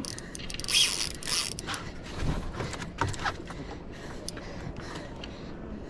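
Fishing reel being cranked, its gears clicking and creaking in uneven bursts.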